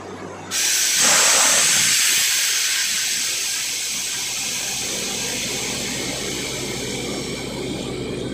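Compressed air from a borewell drilling rig's compressor blasting out of the bore, with water and slurry. It comes on suddenly about half a second in as a loud hiss, then keeps blowing steadily and eases a little, over the low hum of the rig's engine.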